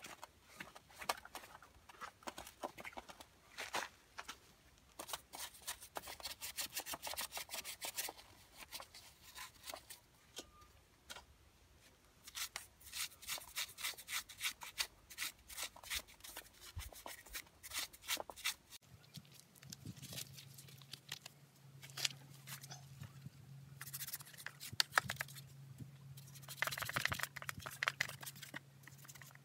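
Rag wiping and a stiff brush scrubbing dirt off the plastic housing of a Stihl MS170C chainsaw, in runs of quick scratchy strokes, several a second. About two-thirds of the way through, a steady low hum comes in underneath.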